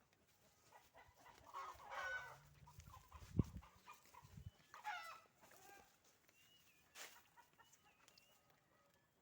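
Chicken clucking in two short bouts of calls, faint, with a sharp low thump in between, about three and a half seconds in.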